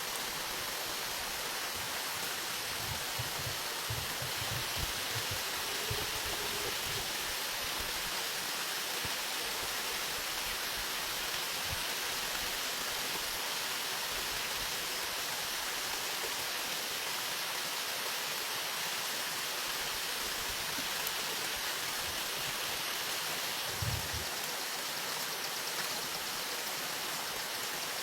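Steady rushing hiss of water, with a few soft low thumps a few seconds in and one more near the end.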